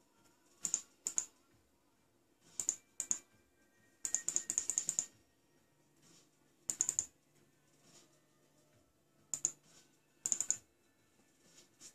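Computer mouse button clicks: pairs of clicks every few seconds and a quick run of about ten clicks about four seconds in.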